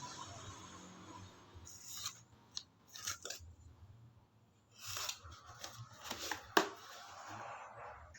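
A parcel being opened by hand: short bursts of crinkling and tearing with a few sharp clicks, the loudest click about six and a half seconds in.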